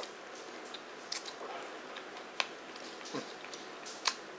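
Noodles being slurped and chewed: a few sharp wet smacking clicks from the mouth, with a short falling hum about three seconds in.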